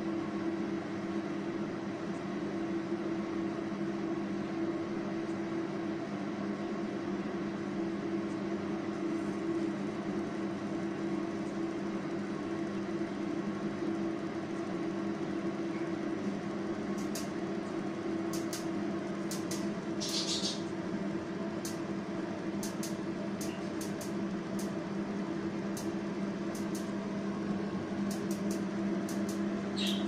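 Miele microwave oven running with a steady hum. In the second half a scatter of sharp clicks sounds, and there is a brief hiss about two-thirds of the way through.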